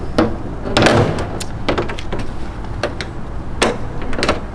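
Compartment door on a miniature fire engine's metal body being unlatched and opened: several sharp clicks and knocks, the loudest about a second in and another a little after three and a half seconds, over a steady low rumble.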